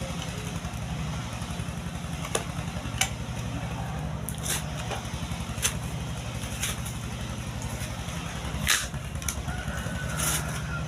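A small engine running steadily in the background, a low, evenly pulsing hum, with about seven scattered sharp clicks and knocks over it; the loudest come late, about nine and ten seconds in.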